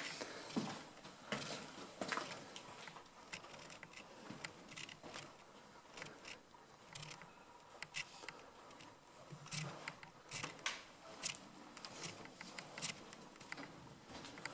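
Footsteps and clothing rustle of a person walking through empty corridors, with soft irregular clicks, scuffs and rustles from handling the camera.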